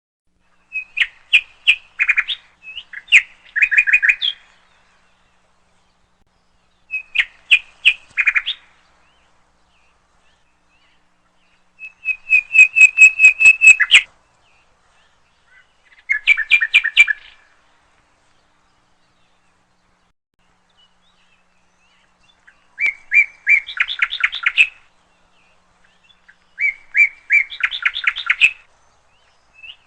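A bird calling in bursts of rapid, sharp chirps, each burst one to two seconds long, seven bursts in all with pauses of a few seconds between them.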